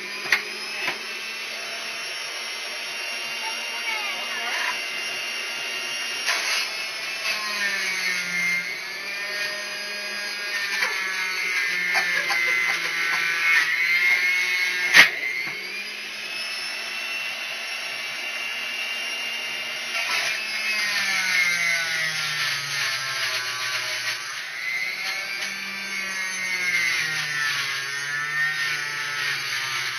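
A small electric kitchen motor running continuously, its pitch sagging and recovering every few seconds as the load changes. A sharp click about halfway through.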